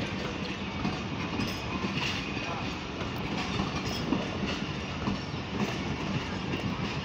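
Passenger coaches of a departing train rolling past close by, their wheels clattering steadily over the rail joints, with scattered sharp clicks.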